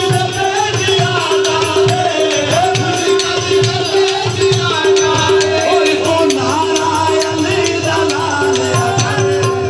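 Live South Asian music: harmonium holding a pulsing drone note, hand drums keeping a steady beat, and a male voice singing a wavering melody over them.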